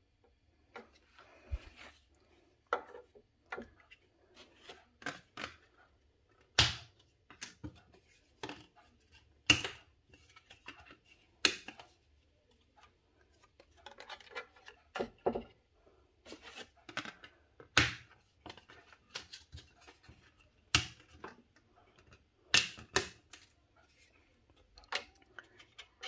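Dry, stiff lasagna sheets being laid into a metal baking tray: irregular sharp clicks and taps as the sheets knock against the tray edge and each other, a few much louder than the rest.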